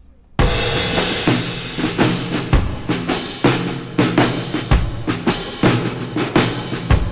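Background music with a steady drum beat, starting suddenly about half a second in.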